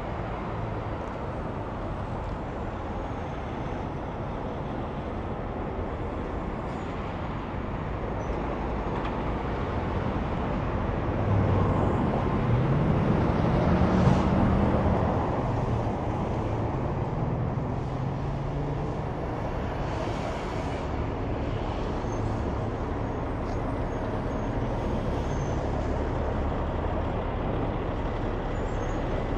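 Highway traffic with trucks driving past. An engine note rises in pitch as one vehicle goes by, loudest about halfway through, then the steady road noise carries on.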